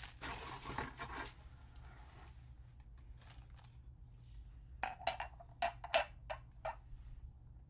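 Plastic wrapping crinkling briefly, then a run of light, sharp clinks of glazed ceramic knocking together as the head of a ceramic wax warmer is fitted onto its base.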